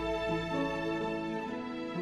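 Symphony orchestra playing a moderately slow (andantino) passage: held chords over a steady low bass note.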